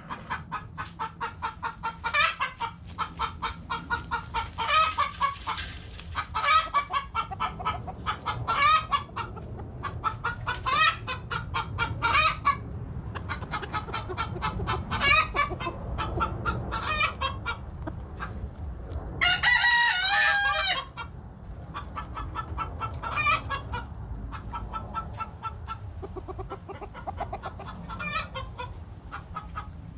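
Backyard hens clucking in repeated quick runs of notes, with one rooster crow of about two seconds roughly two-thirds of the way through.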